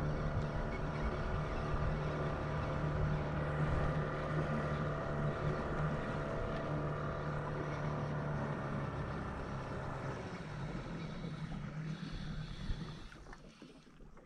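Motorboat engine running at a steady pitch as the boat moves across calm water. About ten seconds in it eases off and dies away over the next few seconds as the boat slows.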